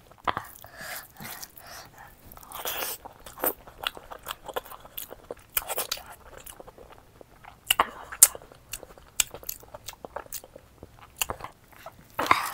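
Close-miked eating: a person chewing and crunching food with wet mouth clicks and smacks, irregular and rapid.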